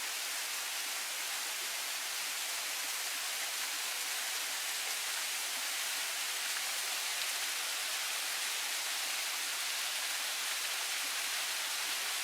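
Waterfall: a steady, unbroken hiss of falling water, bright rather than deep.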